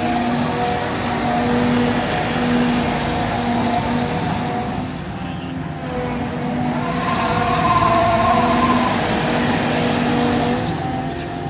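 Caterpillar 299D2 XHP tracked skid steer loader running, its four-cylinder C3.8 diesel engine giving a steady machine hum. About two-thirds of the way through, a higher tone rises and falls again.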